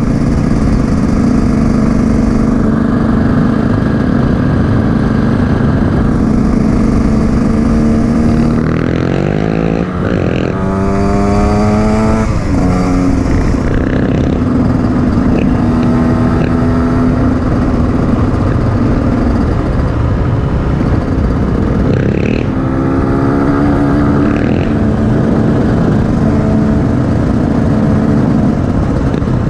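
KTM EXC 150 two-stroke enduro motorcycle engine running under way, heard from on board the bike. It holds a steady note most of the time, with the revs rising and stepping up twice, about a third of the way in and again about three quarters through, as the rider accelerates and shifts.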